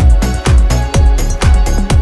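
Background music with a steady electronic beat: a deep kick drum about twice a second under sustained synth tones.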